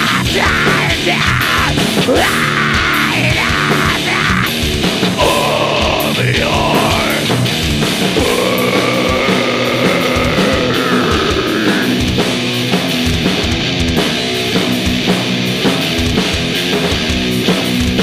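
Live heavy metal band playing: distorted electric guitars, bass and drums, loud and steady. A high wailing line bends up and down over the band for about the first twelve seconds, then drops out.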